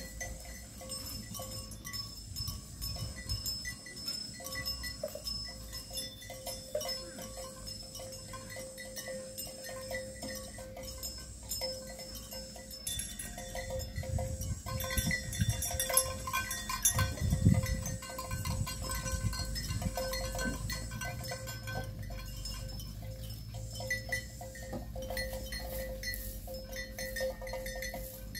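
Herd of water buffalo on the move over dry, stony ground, with livestock bells clinking irregularly over a low rumble.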